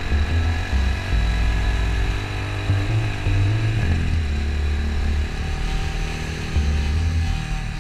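Motorcycle engine running while riding, a steady low rumble whose pitch steps up briefly a little after the middle.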